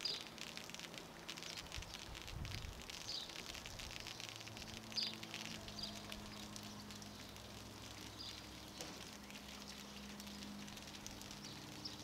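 Soft, steady fizzing crackle of thick car-wash foam, its bubbles popping as it slides down the truck's paint.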